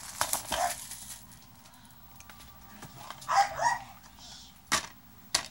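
Plastic DVD case being handled, with two sharp clicks near the end as its latch snaps open.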